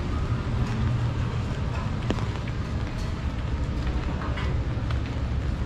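Outdoor street ambience: a steady low rumble, with scattered light ticks and taps over it.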